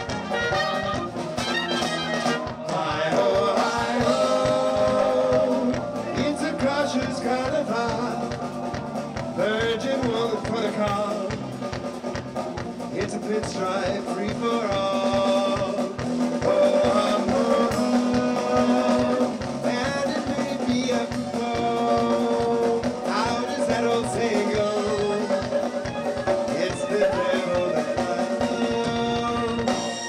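Live band playing an upbeat dance number: electric bass and drum kit keep a steady beat under horns, with a man singing at times.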